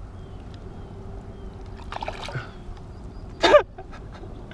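Pond water splashing and trickling as a hooked bass is fought and landed by an angler standing in the water, with a splash about two seconds in. A short, loud vocal exclamation cuts in about three and a half seconds in.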